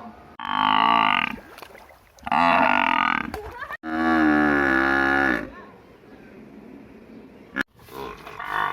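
A buffalo mooing: three loud calls in quick succession, the last the longest at nearly two seconds, then a fainter short call near the end.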